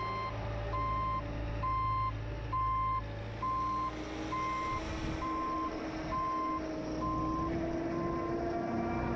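Backup alarm of a Bobcat T595 tracked skid steer beeping steadily as it reverses, about three beeps every two seconds, over the machine's diesel engine running. The beeping stops near the end, and a slowly rising hum comes in about halfway.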